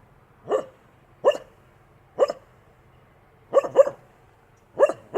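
A dog barking in single sharp barks about a second apart, with a quick double bark about three and a half seconds in and another bark at the end.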